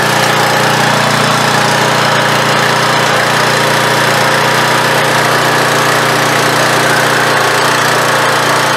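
Troy-Bilt 2700 PSI gas pressure washer running at a steady, unchanging speed, its freshly replaced pump under pressure for a leak test.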